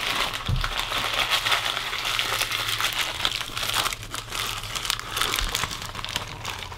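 Paper takeout bag and wrapper crinkling and rustling as they are handled: a dense run of crackly rustles, busiest in the first four seconds and thinner after.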